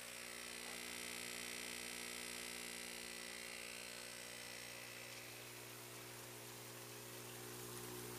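18-watt electromagnetic diaphragm air pump, fitted with a home-made pond-liner diaphragm, running with a steady hum. A soft hiss sits over it for the first few seconds.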